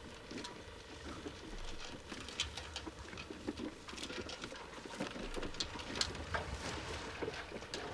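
Two-wheeled handcart carrying a milk can rolling along a gravel road, its wheels crunching along with the pusher's footsteps and irregular small clicks and rattles.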